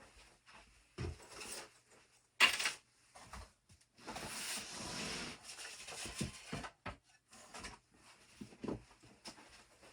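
Belongings being handled and moved out of a room: scattered knocks and thumps, a sharp clatter about two and a half seconds in, and a few seconds of rustling and rubbing after it.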